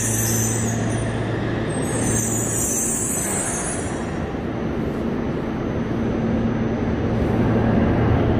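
Yokohama Municipal Subway Blue Line 3000-series train in an underground station: a steady low hum under a high hiss, and the hiss stops about four seconds in.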